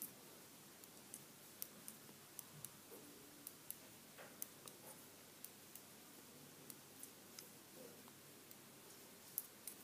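Faint, irregular clicking of 4 mm metal knitting needles touching as stitches are knitted, about two to three small ticks a second.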